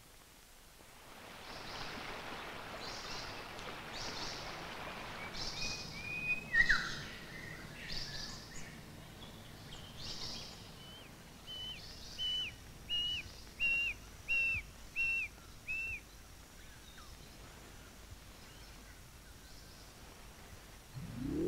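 Birds calling over a steady hiss of outdoor ambience: scattered high chirps in the first half, then one bird repeating the same short note about seven times, a little more than once a second. The hiss then fades to a quieter background.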